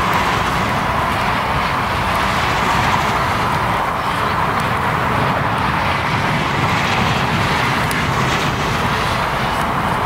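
Steady, unbroken roar of fast traffic on the A7 autobahn: the tyre and engine noise of many passing cars blended into one continuous sound.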